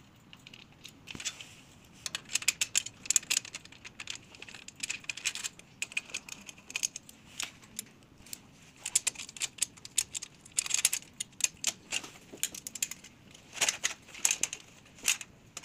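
Irregular light clicks and metallic taps of parts being handled and fitted on a stainless-steel feeder machine during assembly.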